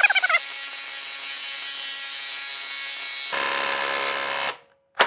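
Bosch Freak cordless impact driver hammering steadily as it drives a 1/2-inch by 8-inch lag screw into a wood block, stopping about four and a half seconds in.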